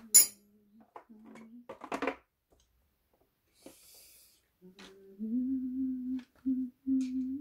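A man humming a low, steady note in three held stretches over the last two and a half seconds. Before that, a sharp clink just after the start and a brief rattle about two seconds in as hand tools are rummaged through.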